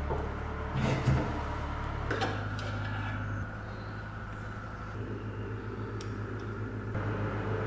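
A few sharp metal clinks and knocks, as of metal parts being handled, over a steady low hum.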